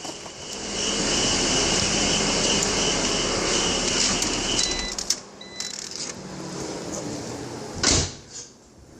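BMW X3 E83 engine running, with a steady hiss and a faint high whine from the engine bay: the weird noise the owner suspects comes from a tensioner pulley or water pump bearings. About five seconds in the running sound drops away, and a single loud thud comes near the end.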